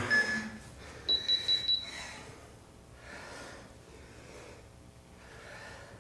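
Electronic workout interval timer beeping: the last beep of the rest countdown, then about a second in a quick run of four higher beeps that marks the start of the work interval. Faint breathing follows.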